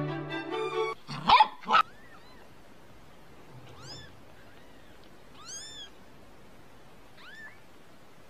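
Newborn kittens mewing: four thin, faint, high-pitched mews spaced a second or two apart, each rising and falling in pitch. Before them, background music stops about a second in and is followed by two loud, short sounds.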